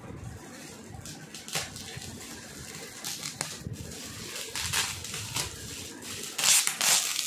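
Shiny metallic gift-wrap paper crinkling and rustling as it is pulled open by hand, in irregular bursts, loudest near the end.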